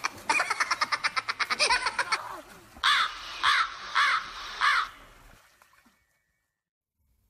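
A burst of rapid, pulsed laughter, then four harsh caws like a crow's, evenly spaced about half a second apart.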